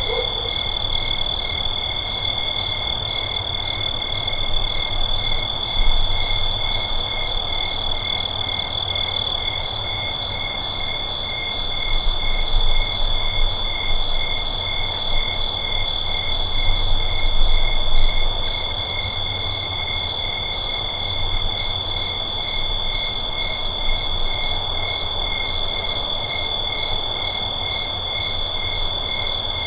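Night chorus of crickets and other insects: several callers overlapping, one a steady high trill and others pulsing in quick even chirps, with short high buzzy trills every couple of seconds that stop about two-thirds of the way through. A low rumble runs underneath.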